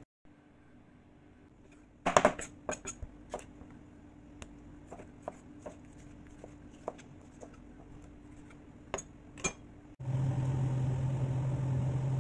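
Kitchen knife slicing a tomato on a plastic cutting board: sharp irregular knocks of the blade on the board, a quick cluster about two seconds in, then single taps. About ten seconds in a steady mechanical hum starts abruptly.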